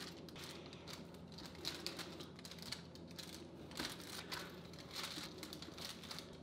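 Chef's knife pressing down through a hardened slab of nutty granola bar on parchment paper, cut after cut: faint crackling and crunching as the blade breaks through the nuts, with the paper crinkling under it.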